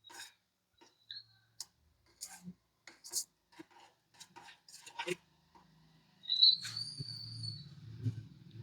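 Pot of herbal decoction simmering on a gas stove: scattered small pops and ticks. A low steady hum starts about five seconds in, and a brief high-pitched squeal comes shortly after.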